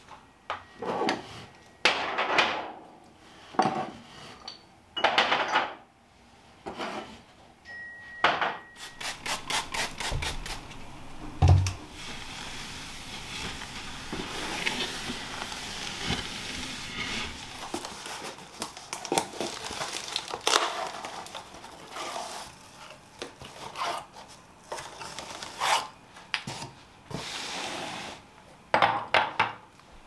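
Glass spice jars and containers handled in a kitchen cabinet: clinks and knocks as they are lifted out and set down, with a quick run of rapid clicks about eight seconds in and a dull thump a few seconds later. Then a microfiber cloth rubs steadily along the shelf, followed by more clicks and knocks of glass and jars being handled.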